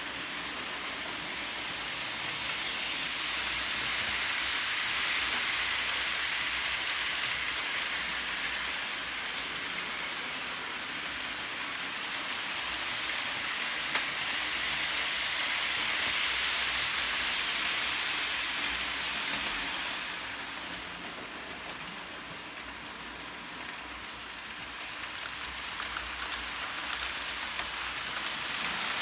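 Model trains rolling along sectional track: a steady hissing rattle of small wheels and motors that swells as the trains pass close and fades as they move off, with one sharp click about halfway through.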